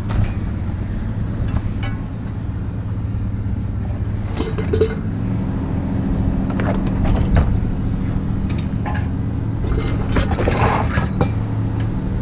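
Vehicle engine idling steadily, with a few short bouts of metallic clinking and rattling: one about four seconds in, another near the middle, and a longer clatter near the end.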